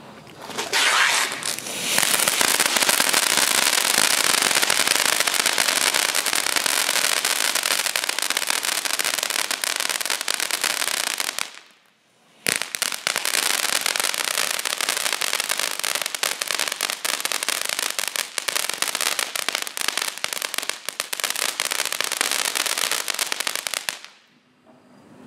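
Flashing Fireworks Tutti Frutti ground fountain spraying sparks: a loud, dense hiss with rapid crackling. It builds over the first two seconds, stops for about a second near the middle, starts again, and dies away shortly before the end.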